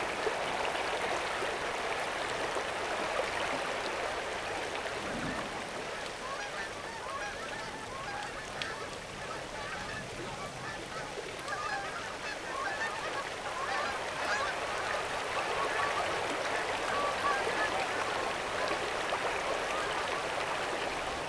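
A flock of geese honking in many overlapping calls over the steady rush of river water. The calls grow denser about six seconds in.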